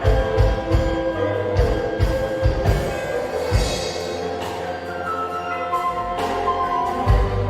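Instrumental band music: sasando, the palm-leaf tube zither of Rote, with guitar, bass guitar and drum kit, bass-drum beats under sustained plucked melody notes. A cymbal swells about three and a half seconds in.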